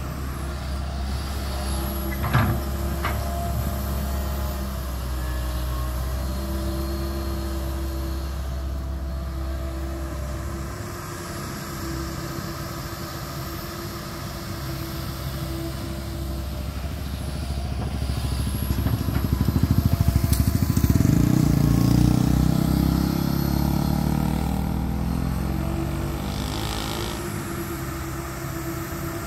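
Tracked hydraulic excavator's diesel engine running steadily while digging, with a sharp knock a couple of seconds in. About two-thirds of the way through it swells louder for several seconds, then settles back.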